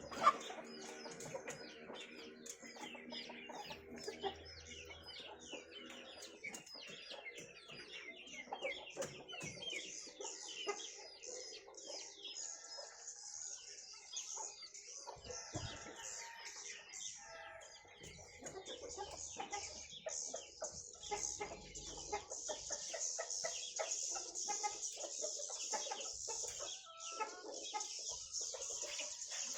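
Colony of edible-nest swiftlets chattering: a dense mass of rapid, high chirps that thickens into a continuous chatter about ten seconds in.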